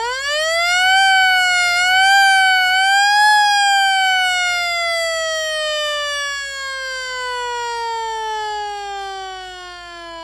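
Old-style siren. It rises quickly in pitch, wavers up and down twice, then falls in one long, slow downward glide as it winds down.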